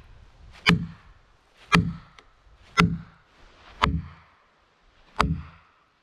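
A plastic felling wedge being driven into a saw cut in a large log, struck five times at about one blow a second, each a sharp crack over a dull thud. The wedge opens the kerf to free a pinched chainsaw bar.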